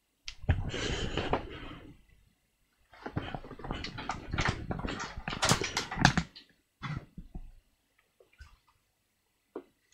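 Rustling and handling noise, with bumps and scrapes, in two stretches of a couple of seconds each, followed by a few separate small clicks and knocks.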